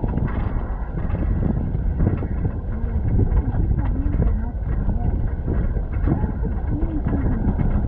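Wind buffeting the microphone on the open upper deck of a moving double-decker bus, over the steady running noise of the bus on the road.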